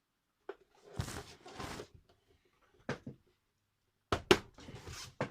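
A few knocks and clicks from handling a small object, with short scuffing between them; the strongest knocks come about four seconds in.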